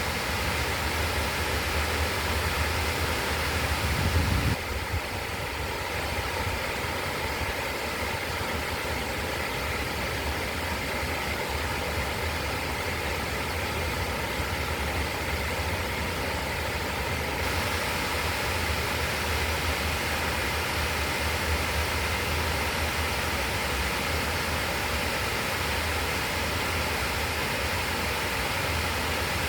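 River water rushing in a steady, even stream with a deep low rumble under it, and a brief low bump about four seconds in.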